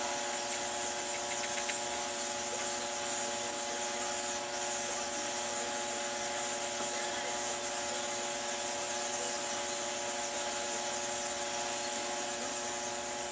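Steady electrical buzzing hum of an ultrasonic cleaning tank running, several fixed tones under a constant high hiss.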